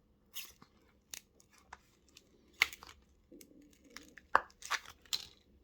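Cracked glass back cover of a Huawei phone being pried off its adhesive: irregular sharp clicks and short crackling rasps of glass and glue letting go, the loudest about two and a half seconds in and again between four and five seconds.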